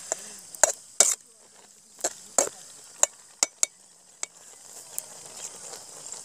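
Metal ladle scraping and clanking against a metal pan as crumbled goat blood is stirred and fried dry, about ten sharp knocks at irregular intervals over a faint steady sizzle.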